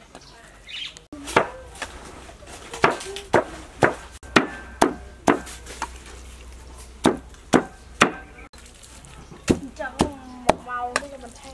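Cleaver chopping diced pork on a round wooden chopping block: sharp knocks about two a second, starting about a second in, with a short pause near the middle.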